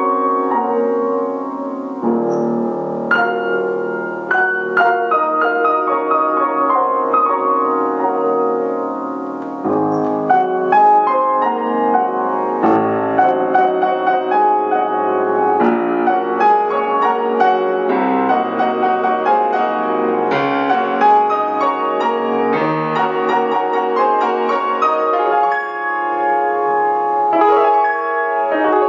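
Grand piano played solo: a flowing classical passage of many quick notes with frequent sharp attacks, in the low and middle registers.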